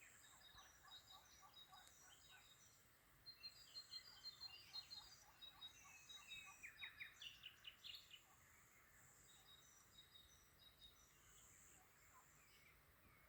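Faint chorus of small songbirds chirping and twittering, with quick runs of repeated notes from more than one bird. The calls grow busier about three seconds in and thin out again after about eight seconds.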